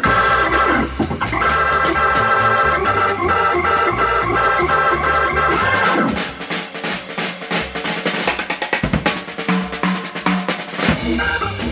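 Jazz organ and drum-kit music: held electric-organ chords over a bass line, with busy snare, bass drum and cymbals. About six seconds in, the organ chords drop back and the drums carry on mostly alone, until the organ comes back in near the end.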